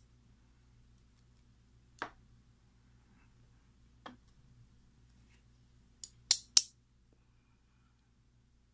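Small, sharp metal clicks of tweezers and lock pins being handled at a gutted lock plug and set into a pin tray. Single clicks about two and four seconds in, then three louder clicks close together about six seconds in.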